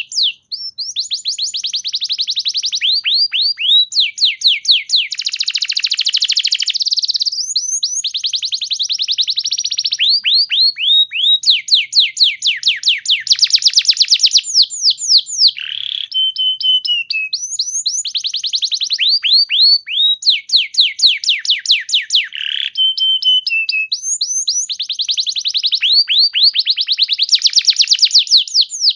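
Domestic canary singing continuously: long fast trills of rapidly repeated down-sweeping notes that change speed from phrase to phrase, broken twice by a held, slightly falling whistle.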